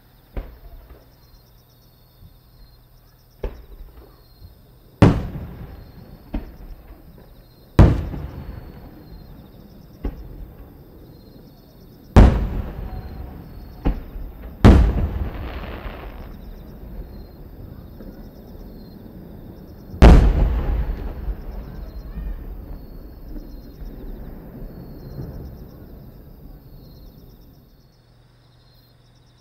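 Aerial firework shells bursting: about ten sharp bangs spread over twenty seconds, the bigger ones booming and trailing off in long rolling echoes, the last big one about twenty seconds in.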